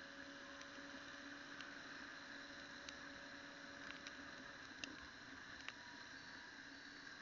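Faint, muffled steady hum from a motorcycle-mounted action camera riding in the rain, with scattered sharp ticks of raindrops striking the camera.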